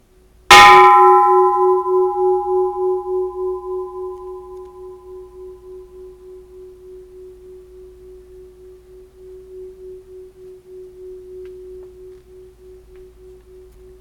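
Bronze Japanese Buddhist temple bell struck once about half a second in: a bright clang whose higher overtones die away within a few seconds, leaving a low hum that wavers with a pulse about three times a second and is still ringing at the end.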